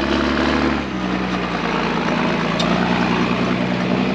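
Tractor engine running steadily, its pitch shifting slightly about a second in, as the tractor with its planter is about to set off.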